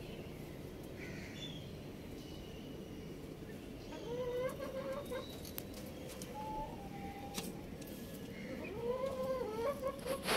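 Domestic chickens calling: a few drawn-out calls about four seconds in, a higher held note a little later, and a run of calls near the end, over a steady low background rumble with a few sharp clicks.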